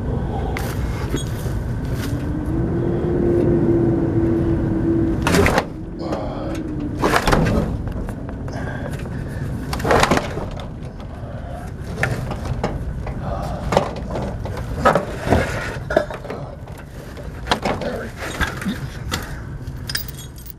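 Knocks and clatters of heavy metal parts being handled and shifted as a large compressor head is worked through a doorway, over a steady low rumble. A rising hum runs for a few seconds and stops with a sharp knock about five seconds in.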